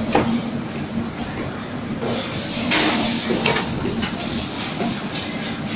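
QF-682 automatic heel nailing machine running: a steady mechanical hum and rattle from its nail feeder, with a few sharp clicks and a brief hiss about two and a half seconds in.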